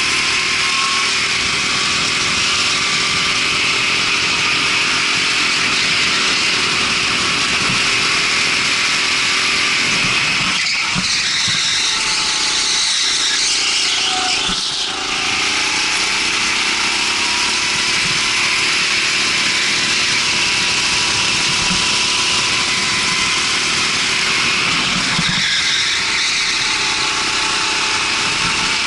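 A rental go-kart's small engine running flat out over a steady rushing noise, its pitch slowly rising and falling with the throttle. It eases off briefly around the middle and again near the end.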